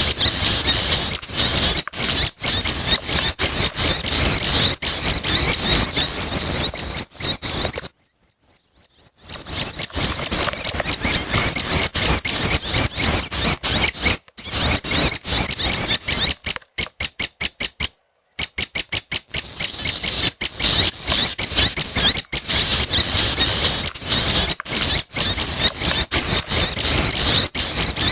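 Young prenjak (a small warbler-type songbird) calling in a rapid, continuous, high-pitched chatter. It breaks off for about a second some eight seconds in, and turns into a quick even series of short notes with a brief stop near the two-thirds mark.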